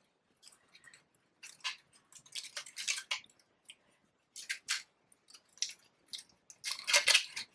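Paper flowers rustling and crinkling as they are handled and arranged into a bouquet: short, irregular crackles of paper.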